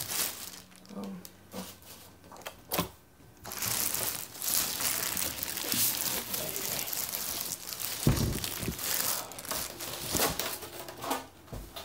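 Packaging being handled while a PC case is unpacked from its box: a few knocks, then continuous crinkling and rustling starting about three and a half seconds in.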